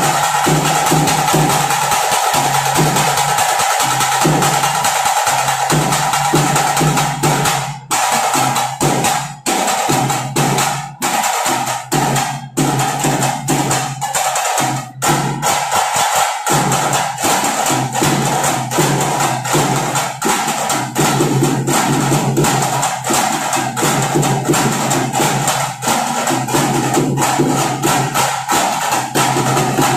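Fast, dense drumming played loud and without let-up, over a steady droning tone; the beat breaks off for a moment several times around the middle.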